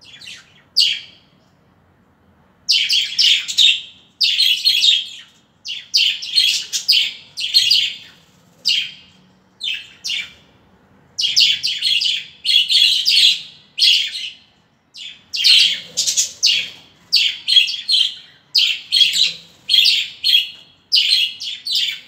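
A flock of budgerigars chattering: bursts of high chirps and warbles that follow one another with short gaps, sparse for the first couple of seconds and then nearly continuous.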